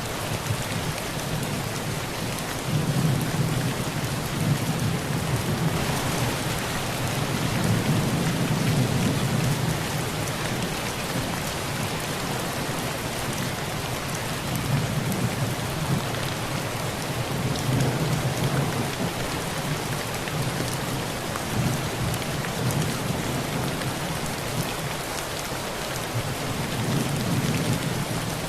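Heavy rain drumming steadily on a tin roof, with low thunder rumbling in several long rolls that swell and fade.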